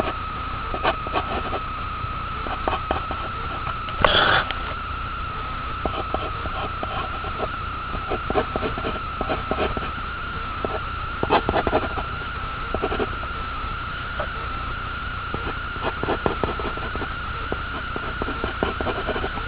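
Graphite pencil scratching on paper in short sketching strokes, with one louder rasp about four seconds in. A steady high electrical whine and a low hum run underneath.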